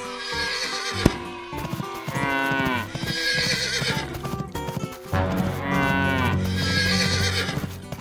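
Stock farm-animal calls over background music: a horse whinnying and a cow mooing, heard as two long calls, the first about two seconds in and the second from about five seconds in.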